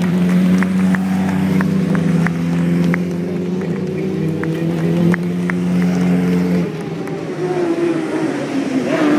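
Racing motorcycle engines passing one after another at a steady, loud engine note, which then falls and rises again near the end as further bikes go by.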